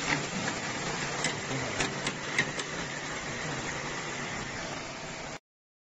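Hot oil in a commercial deep fryer sizzling around a basket of fried chicken just lifted from the vat: a steady hiss with scattered sharp crackles and clicks. It cuts off suddenly near the end.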